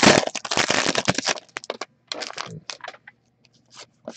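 Foil wrapper of an Upper Deck SPx hockey card pack being torn open and crinkled, a dense crackle for the first second and a half, then scattered light clicks as the cards are handled.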